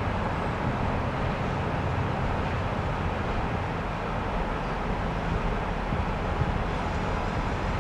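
ChME3 shunting diesel locomotive's six-cylinder diesel engine running at a steady low drone while it moves slowly with a freight train, with no sudden knocks or horn.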